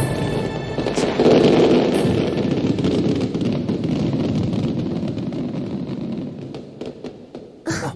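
Fireworks bursting, followed by dense crackling that slowly fades over several seconds, with another short sharp crack near the end.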